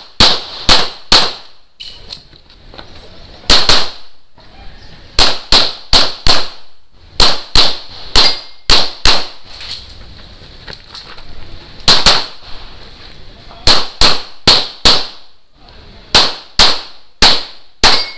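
Pistol shots fired in quick strings of two to six, about three shots a second, with gaps of one to three seconds between strings while the shooter moves between shooting positions on an IPSC practical-shooting stage.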